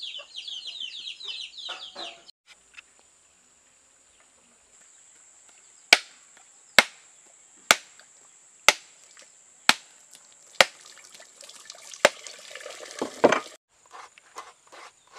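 A machete striking a husked coconut about once a second, seven sharp cracks and then a heavier one, as the shell is cracked open. It opens with a short run of quick high chirps, and near the end the coconut meat is scraped on a grater in fast, even strokes.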